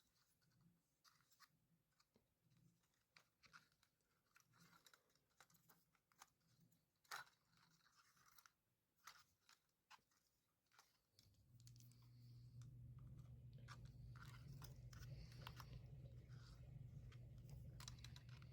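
Faint scattered clicks and taps of a small screwdriver bit and tiny screws being worked on a drone arm. About eleven seconds in, a steady low motor hum starts and continues.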